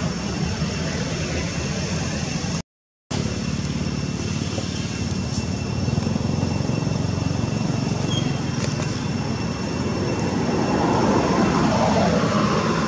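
A steady, distant engine rumble that swells a little near the end. About three seconds in, the sound cuts out completely for about half a second.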